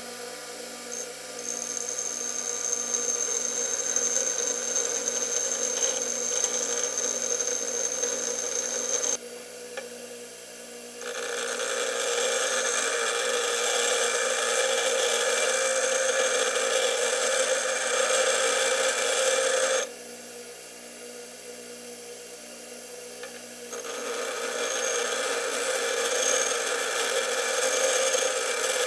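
A bench grinder's wheel grinding the relief faces of a high-speed-steel lathe tool bit, in three passes of several seconds each. Between the passes, near 10 and 21 seconds in, the wheel spins free and is quieter.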